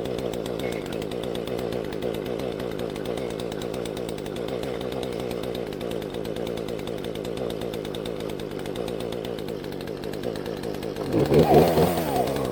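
Small two-stroke chainsaw engine idling steadily just after being started. Near the end it is revved up and down a couple of times.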